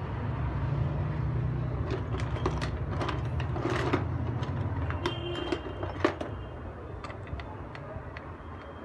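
Clicks and small knocks of a screwdriver and loose parts being handled as the screws of a Bluetooth speaker's inner plate are undone, densest in the middle, over a steady low hum that fades after about six seconds.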